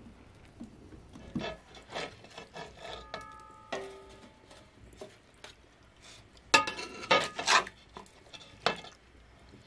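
A metal ladle scraping and clinking against a large steel wok and a metal serving plate as a cooked vegetable dish is scooped out. A short metallic ring about three seconds in, and the loudest run of scrapes and knocks between about six and a half and eight seconds.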